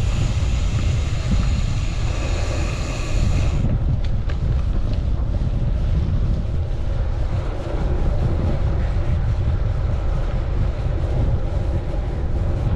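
Strong wind buffeting a chest-mounted camera's microphone on a moving bicycle: a constant heavy low rumble. A higher hiss rides over it and cuts off about three and a half seconds in.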